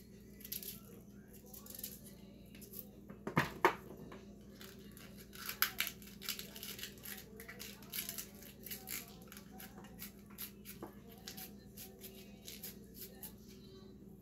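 Raw cabbage being shredded by hand with a small knife: irregular crisp cuts, roughly two a second. A louder double knock a little over three seconds in, over a steady low hum.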